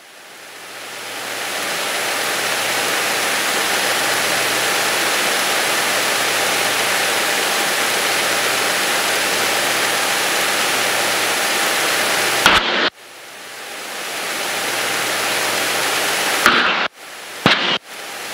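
Steady hiss of static on a light aircraft's cockpit radio and intercom audio, with a faint low engine drone beneath. The hiss swells in at the start, cuts off with a sharp click about twelve seconds in, swells back, and is broken by three more sharp clicks near the end.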